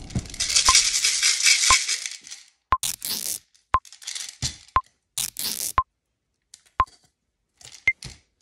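Small plastic balls rattling in a clear plastic cup for about two and a half seconds. Then comes a string of short pops, each with a quick ringing click, several of them followed by a brief swish, roughly one a second.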